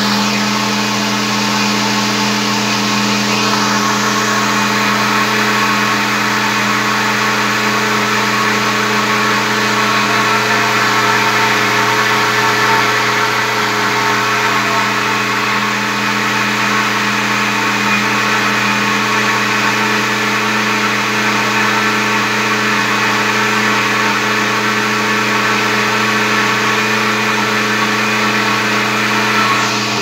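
Walita Master Pro blender motor running steadily at its top speed, blending a batter of whole jabuticabas, oil, eggs and sugar.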